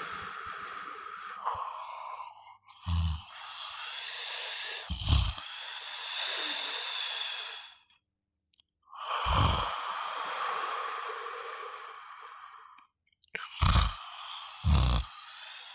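A person snoring: long, noisy breaths of several seconds each, broken by five short, deep snorts, with a pause of about a second between breaths past the middle.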